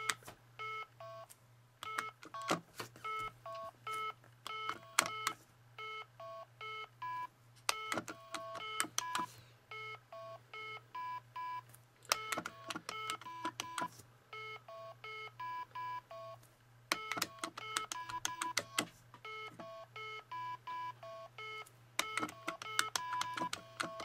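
Basic Fun electronic Simon keychain game beeping: runs of short electronic tones at a few different pitches as the game plays its pattern and the player repeats it, each press with a small plastic button click.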